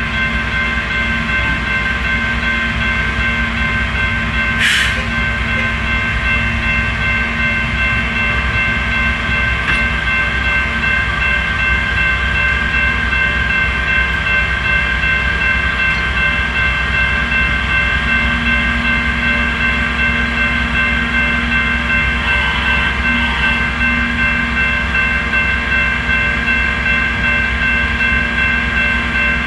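Diesel engine of a Herzog boom truck idling on a rail crossing, a steady low rumble, under a constant high-pitched ringing tone. A short hiss of air sounds about five seconds in.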